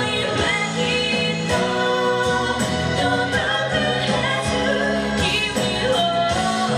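A pop song performed live: singing over instrumental accompaniment.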